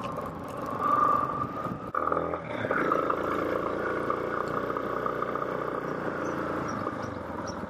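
Motorcycle engine running while riding over a paver street. About two seconds in the engine note breaks off briefly and rises again, then it runs steadily.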